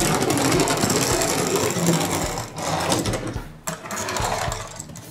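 Small toy vehicle being rolled by hand, its wheels and little gearbox whirring with very fast clicking, in stretches broken by short pauses.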